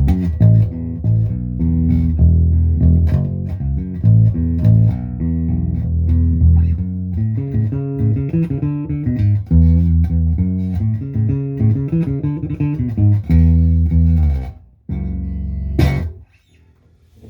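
Lyle 5120 short-scale hollow-body electric bass played through a Fender Rumble 100 bass amp with both pickups on: a run of plucked bass notes. After a short pause comes one more note, ended by a sharp click, and then the amp falls quiet.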